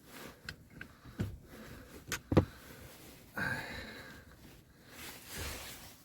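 Hands and a tool working at a truck's foot pedal: a few sharp knocks and clicks, the loudest about two and a half seconds in, then scraping and rubbing as a pedal cover is worked loose.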